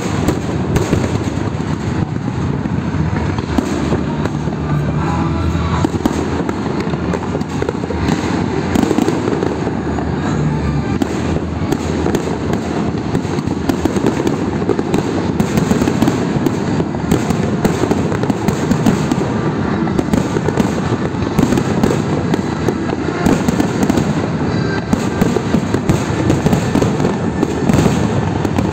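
Aerial fireworks display: a dense, continuous barrage of shell bursts and crackling, one bang after another with no pause.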